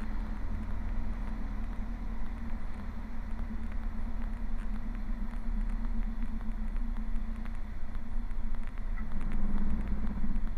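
Mooney M20E Super 21's four-cylinder engine and propeller running at low landing power, heard as a steady low drone inside the cockpit through the landing flare and a smooth touchdown.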